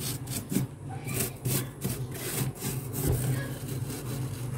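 Fingers scratching and scraping thick, flaky freezer frost: a quick, irregular series of short scraping strokes over a steady low hum.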